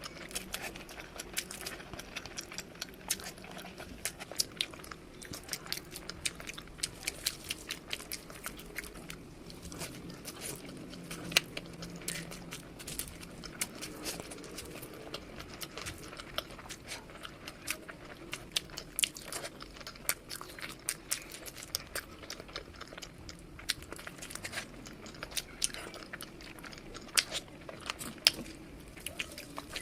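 Close-miked eating: crunchy bites and chewing, with many irregular sharp crackles and clicks throughout.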